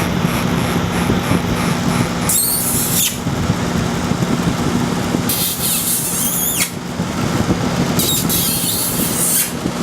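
Pet bird calling three times in high, shrill squeals, the second ending in a falling glide, over the steady hum of a running air conditioner.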